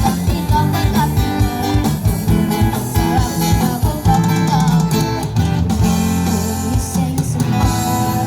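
Live street-band music: guitar over a steady drum beat, with a singing voice carrying the melody.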